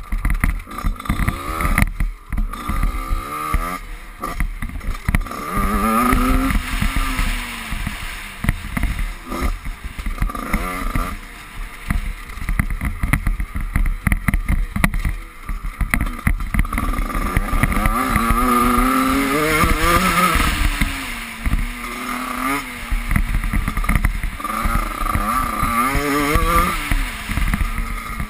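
Dirt bike engine ridden hard over a motocross track, its pitch repeatedly rising under throttle and dropping off, with rough noise and knocks from the bumpy ground on the bike-mounted microphone.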